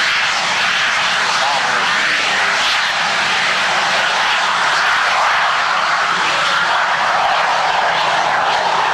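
Fouga CM.170 Magister's twin Turbomeca Marboré turbojets running at high power as the jet rolls down the runway, a steady rushing jet roar.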